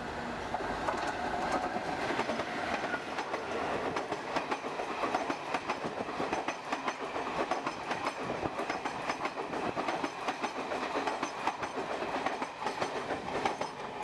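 Diesel-hauled passenger train passing close by on the adjacent track: its coaches rumble past with a dense, fast clatter of wheels over the rails. The sound swells about a second in as the train reaches the camera.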